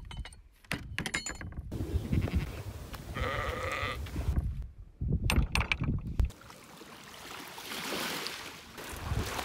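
A sheep bleats once, about three seconds in, over wind rumbling on the microphone and a few sharp clicks near the start. From about six seconds on, the rumble gives way to a soft, steady wash of water over the mudflats.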